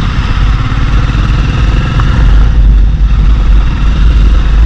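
Motorcycle engine running steadily while riding along a city road, under a heavy, constant low rumble.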